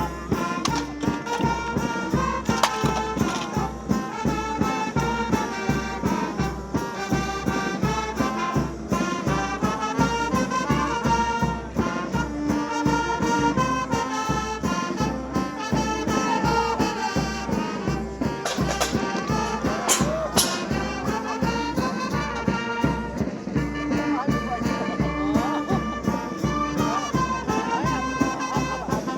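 Band music with brass and a steady drum beat.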